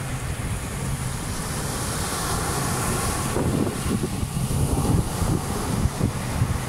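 Wind buffeting the microphone in gusts over the wash of waves breaking on a sandy shore.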